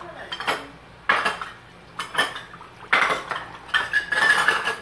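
Chopsticks and spoons clinking against stainless-steel bowls and a shallow stew pot at a meal: a string of separate, sharp clinks. Near the end a brief ringing note is held for under a second.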